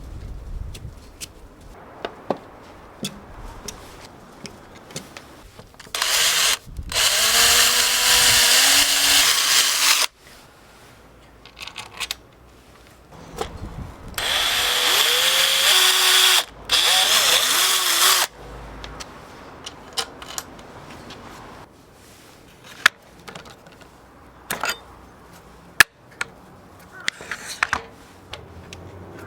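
Electric drill running in two bursts of about four seconds each, its motor pitch wavering and sagging under load. Between and after the bursts there are scattered clicks and knocks of tools and parts being handled.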